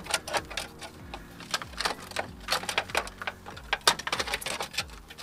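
Irregular metallic clicks and clinks of a truck's front hub and steering knuckle assembly being shifted and handled by hand.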